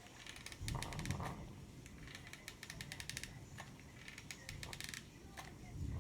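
Two bursts of rapid light clicking with soft handling noise, from hot glue being applied to a plastic juice bottle with a hot glue gun.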